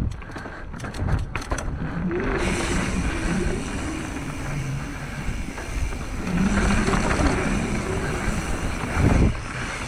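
Mountain bike riding down a rocky trail: wind rushing over the camera microphone and tyres rumbling over the ground, with a burst of sharp rattles from the bike in the first two seconds.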